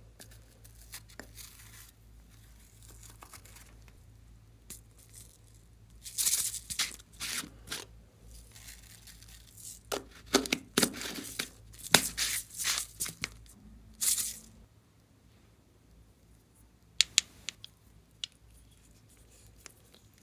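Rustling, scraping and tearing-like sounds from a glitter sheet and a bottle of glitter flakes being handled over a tub of slime. They come in bursts of a second or two, with a few sharp clicks near the end.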